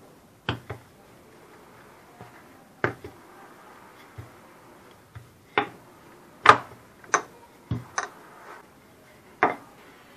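Scattered sharp knocks and taps on a stone countertop as puff pastry is pressed, lifted and rolled with a wooden rolling pin, then cut with a knife. There are about nine of them at uneven intervals, and the loudest comes a little past the middle.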